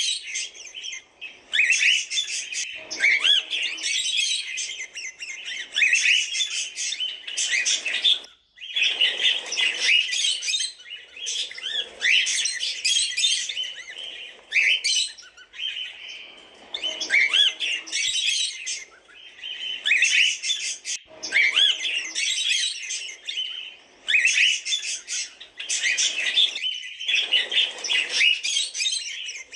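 Cockatiels chirping in a dense, continuous stream of rapid, overlapping chirps and calls, breaking off briefly about eight seconds in.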